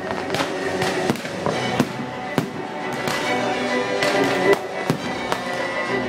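Fireworks display going off: a run of sharp bangs and crackles about every half second, over music with long held notes.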